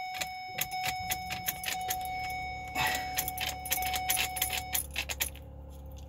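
Keys jangling and clicking at the 2008 Ford Escape Hybrid's ignition switch while a steady electronic warning tone sounds over a low hum, with no cranking or engine start: the car fails to start, which the owner blames on a worn ignition switch. The tone and hum cut off shortly before the end.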